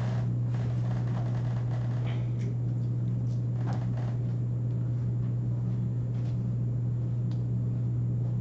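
Steady low hum of room noise, with faint scattered taps and clicks from a person moving about at a whiteboard.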